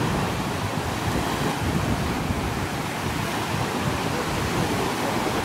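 Small sea waves breaking and washing up on a beach: a steady rushing surf noise.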